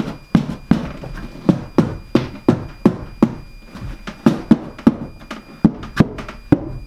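Steady hammering, about three blows a second, knocking a wall panel into place.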